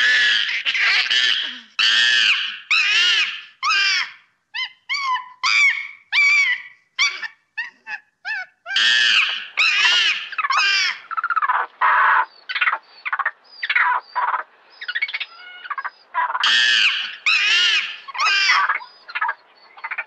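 A primate giving a run of loud, shrill calls, each one rising and falling in pitch. Bouts of long calls, about a second each, alternate with quicker runs of short, higher calls.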